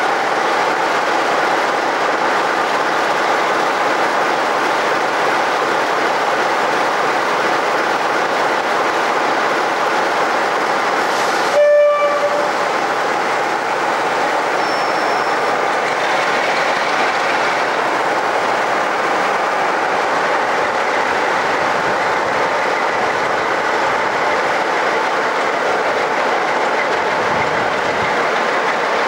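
Diesel locomotive running steadily and loudly, with one short horn blast a little before halfway.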